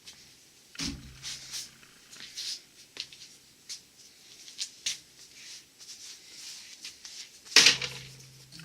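Metal transmission parts being handled on a workbench: scattered clicks and scrapes, with two heavier metal knocks, one about a second in and a louder one near the end, each leaving a short low ring.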